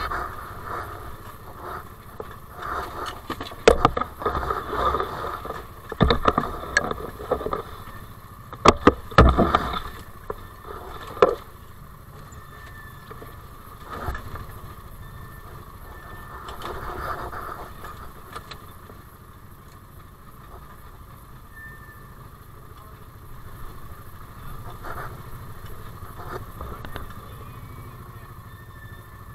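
Side-by-side UTV's engine running at low speed as it crawls over rocks, with a cluster of sharp knocks and clunks during roughly the first eleven seconds as the tyres and underbody hit rock, then a steadier low drone.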